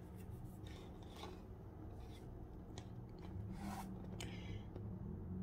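Pages of a paperback coloring book being turned and handled: several faint, short paper rustles and swishes over a low steady hum.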